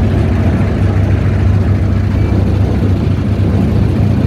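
A river boat's engine running steadily, heard from on board as a loud, even low drone.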